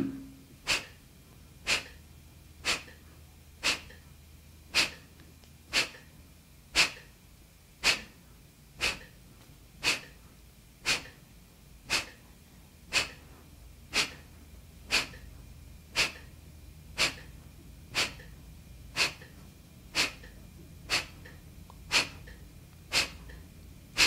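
Kapalabhati breathing: short, forceful exhalations puffed out through the nose by pulling in the belly, one about every second in a steady rhythm kept to a metronome.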